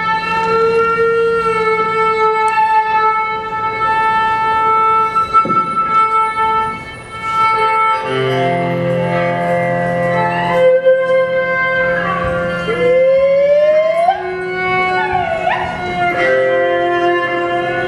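Live music for belly dance: long held melodic notes, with a low steady drone coming in about eight seconds in and sliding, bending notes near the end.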